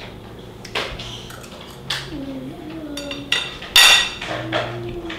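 A metal fork clinking and scraping on a ceramic plate several times, the loudest clatter about four seconds in. Between the clinks come two short wordless voice sounds from someone tasting the food.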